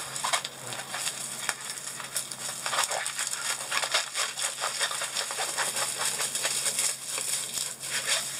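Plastic-film-covered diamond painting canvas crinkling and crackling as it is rolled back the opposite way to flatten it, a dense run of irregular crackles.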